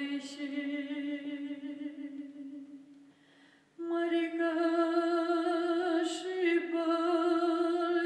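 Slow vocal music: a long held sung note fades away, and just before four seconds in a new, slightly higher note comes in suddenly and is held with a slight vibrato.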